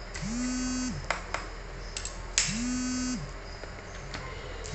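Several sharp plastic clicks as a laptop's battery latch is worked and snapped shut, the loudest about two and a half seconds in. Behind them a buzzy held tone swells in and fades out about every two and a half seconds.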